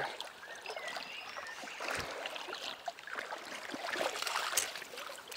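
River water splashing and running as a hooked trout is brought in, with scattered clicks and a knock about two seconds in.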